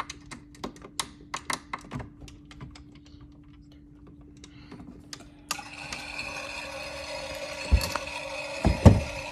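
A run of sharp clicks, then about halfway through a toy washing machine starts running with a steady whirring hum, loaded with rocks. Near the end come two heavy thumps.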